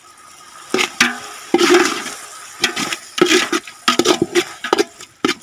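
Metal ladle stirring and scraping thick frying onion-tomato masala around a metal pot, in about eight irregular scraping strokes over a faint steady hiss.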